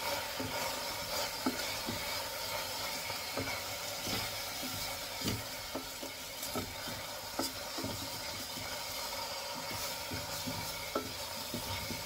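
Food sizzling and crackling in hot oil in a stainless steel pot over a gas burner, stirred, with a utensil clicking against the pot now and then.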